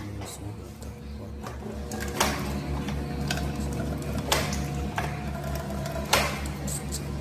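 Steady low mechanical hum with a fast pulse, with sharp clicks and knocks every second or two; the loudest knocks come about two, four and six seconds in.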